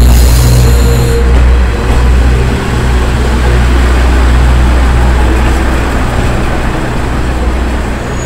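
KiHa 47 diesel railcars rolling into the platform and slowing, with a steady low engine and wheel rumble that gradually eases. A brief high squeal is heard in the first second.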